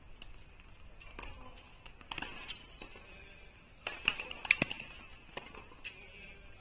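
Tennis balls on hard courts: scattered sharp bounces and racket hits, the loudest cluster about four and a half seconds in.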